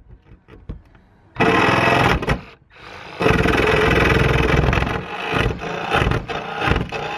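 Milwaukee cordless jigsaw cutting through a van's sheet-metal roof. It starts about a second and a half in, stops briefly, then runs on steadily with a few short dips.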